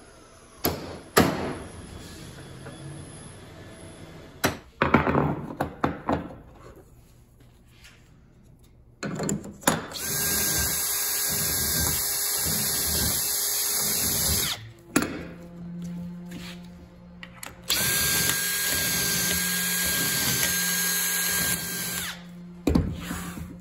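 A few sharp hammer taps on a wooden door jamb, then a cordless drill boring pilot holes through a steel hinge leaf into the jamb in two steady runs of about four seconds each, with knocks between them.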